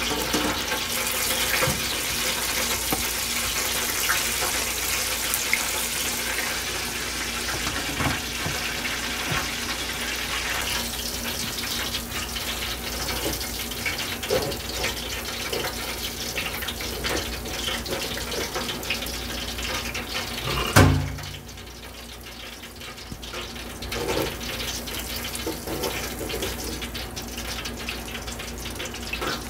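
Breaded catfish fillets sizzling and crackling in hot oil in an electric deep fryer, with light scrapes of a spatula on the wire basket. About two-thirds through there is one loud knock, after which the sizzling is quieter.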